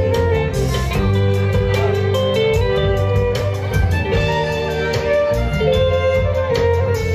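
Live band playing an instrumental passage: electric guitar out front over bass guitar and a drum kit keeping a steady beat, with a fiddle in the band.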